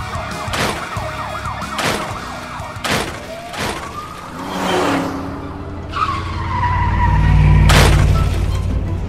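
Cartoon car-chase sound effects over background music: several short whooshes as cars speed past and a rising engine rev. About six seconds in comes a tyre squeal, followed by the loudest part, a deep engine rumble.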